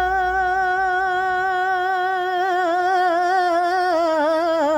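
A woman singing a Bulgarian folk song unaccompanied, holding one long drawn-out note with a slight waver and breaking into quick ornamental turns near the end.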